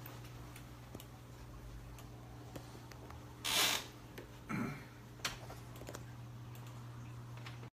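Quiet studio room tone with a steady low hum and a few light clicks. About three and a half seconds in there is a short burst of noise, the loudest thing here, and a smaller one follows a second later.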